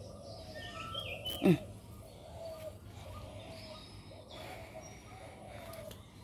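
Birds chirping over and over in the garden: short, repeated calls, some higher and thinner. About one and a half seconds in, a single short, loud sound slides quickly down in pitch.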